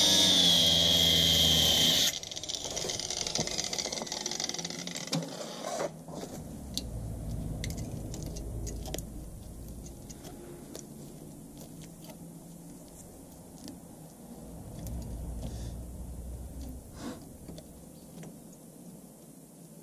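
Angle grinder grinding the steel body panel of a Volkswagen T3 with a high-pitched whine, cutting off abruptly about two seconds in. After that come quieter scattered scrapes and clicks of a hand tool working the sheet-metal edge.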